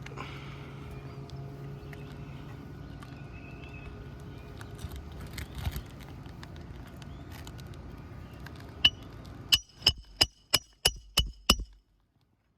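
A hammer driving a roofing nail through an asphalt shingle: one strike, then a quick run of about seven strikes with a metallic ring, roughly three a second, near the end. Before the strikes there is a steady low hum.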